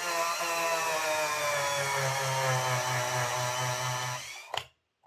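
Small electric motor whirring steadily for about four seconds while model railway wheels are cleaned, its pitch sinking slightly before it stops, followed by a single click.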